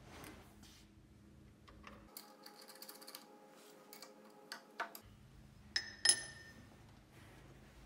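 Small metal clicks and ticks of a square-socket wrench working the square-head collar screw on a lathe taper attachment, then a sharp metallic clink with a short ring about six seconds in.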